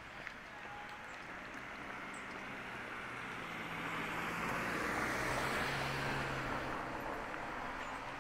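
A motor vehicle passing: engine hum and tyre noise swell to their loudest about five seconds in, then fade.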